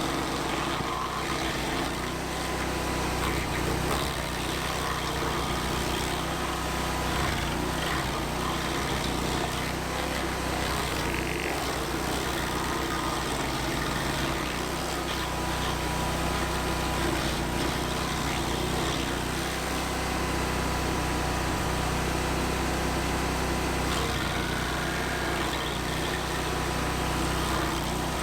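Vermeer SC362 stump grinder's engine running steadily.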